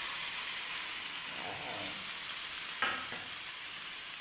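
Chicken stir-fry with soy sauce and freshly added drained spaghetti sizzling in a hot pan, a steady hiss. A single short knock about three seconds in.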